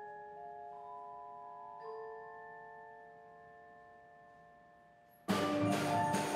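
Percussion ensemble playing: soft held mallet-keyboard chords ring and slowly fade, then about five seconds in the full ensemble comes in loudly with drums and mallet keyboards together.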